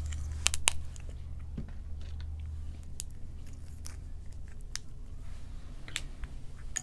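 Sparse sharp clicks and small crunches as long acrylic nails pick at a mussel shell, over a low steady hum.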